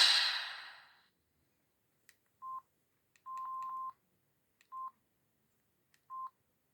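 Samsung SGH-E600 mobile phone keypad tones: short electronic beeps at one pitch, each led by a faint key click, about six presses in four seconds with three in quick succession. A louder ringtone fades out in the first second.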